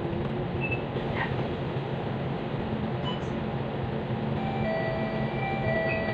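Steady engine rumble inside a double-decker bus as it draws up and stands at a bus stop, with faint high tones near the end.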